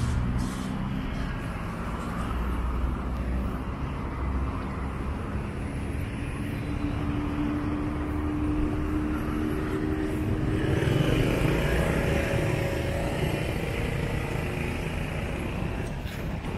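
Road traffic on a busy town street: motor vehicles passing steadily, with engine hum and tyre noise, and one vehicle passing louder about two-thirds of the way in.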